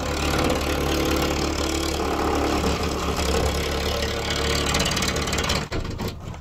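Electric power saw cutting through wooden barn siding, its motor running steadily under load, then cutting off a little before six seconds in.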